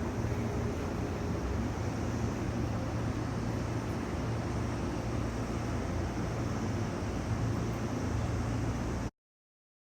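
Steady rumble and low hum of an electric commuter train, cutting off abruptly to dead silence about nine seconds in.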